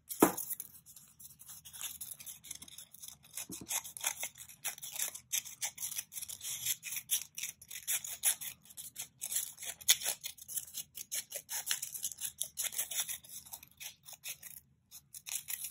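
Scissors cutting along a paper strip: a quick, continuous run of short crisp snips as the blades work through the paper loop.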